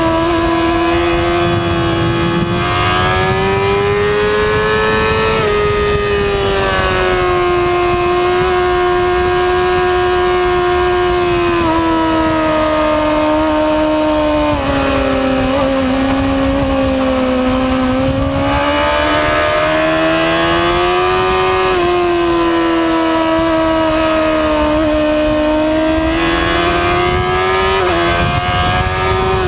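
Sport motorcycle engine at high revs on a track lap, the pitch rising under acceleration and falling off into corners, with a few quick gearshift steps. Wind rushes over the onboard microphone.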